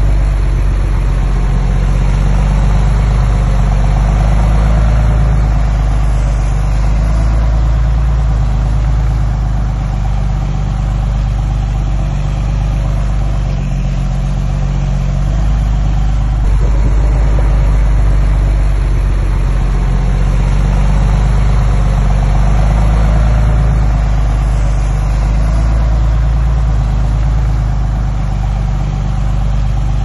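Heavy construction machine's diesel engine running steadily, with only slight rises and falls in level.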